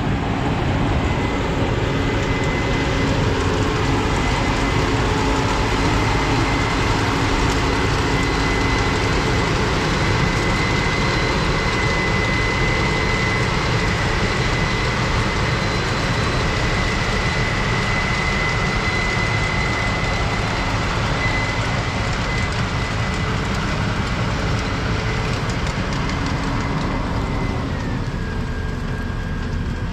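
Combine harvester running steadily, its engine and drivetrain making a constant noise with a high whine that steps down in pitch near the end.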